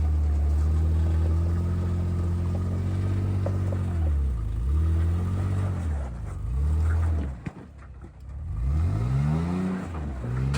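Off-road vehicle engine revving under load while rock crawling, its pitch rising and falling several times. About three-quarters of the way through the engine note drops away briefly, then climbs again in a long rise.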